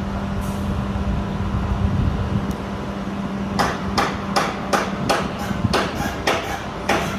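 A steady low machine hum with a constant tone. About halfway through, a regular run of sharp knocks starts, roughly three a second, and keeps going.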